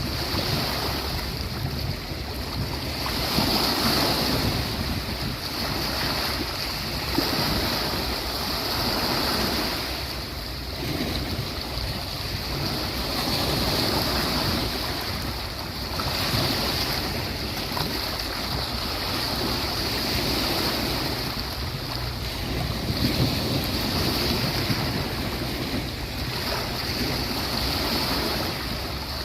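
Sea waves breaking and washing up a beach, the surf swelling and easing every few seconds.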